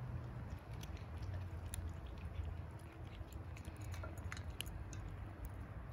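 Kittens and a cat chewing dry kibble: scattered small, crisp crunches at an irregular pace, over a steady low background rumble.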